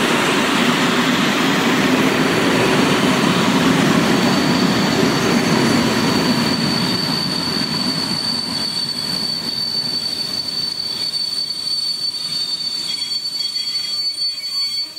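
Passenger coaches rolling past on the rails, the wheels running with a steady rumble and rattle. From about two seconds in a thin, steady, high-pitched wheel squeal sounds over it, and the rolling noise eases off a little in the second half.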